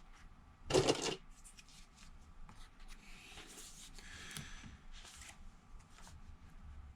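Hands handling the device and tools on the workbench: a brief loud rustling scrape about a second in, then softer rubbing and light scattered clicks.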